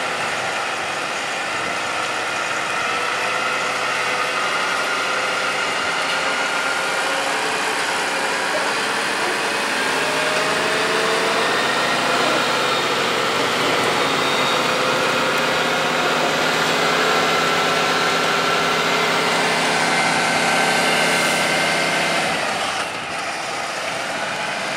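Diesel engine of a heavy tractor unit running steadily as it slowly tows a heavy load on a multi-axle trailer past, a continuous drone whose pitch drifts slightly. It drops in level about 22 seconds in as the truck moves on.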